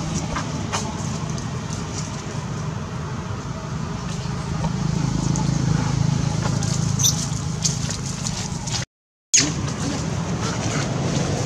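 Steady low outdoor rumble, like distant traffic, with scattered small crackles and clicks. The sound cuts out completely for about half a second some nine seconds in.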